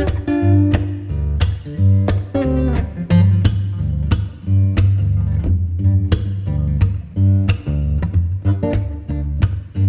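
Background music: strummed and plucked guitar over a steady bass beat.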